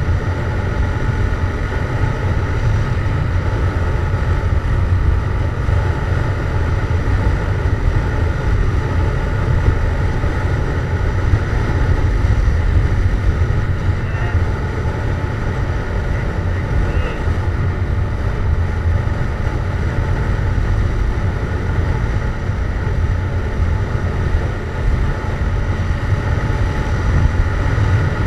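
Yamaha MT-07's parallel-twin engine with a Jeskap GP aftermarket exhaust, running steadily at cruise while the bike is ridden. A heavy low rumble runs through it, with wind noise over the microphone and no big revs.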